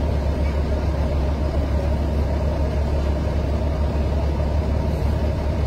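Diesel engine of a standing passenger train idling, a steady deep rumble.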